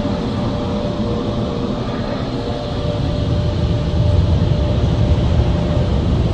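Car wash air-dryer blowers running, a steady low rush of air heard from inside the car, growing louder about four seconds in.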